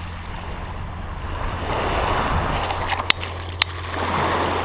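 Small waves washing up over a shingle beach, swelling twice as each one runs in over the pebbles, with two sharp clicks about three seconds in, half a second apart.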